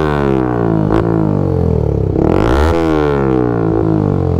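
Yamaha MT-15 V2's single-cylinder engine revved through an aftermarket full-system exhaust with its dB killer removed. The revs drop away over the first second, climb again about two seconds in and fall back.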